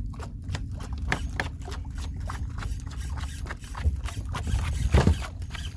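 Strong wind rumbling on the microphone, with many irregular sharp clicks and knocks, the loudest about five seconds in.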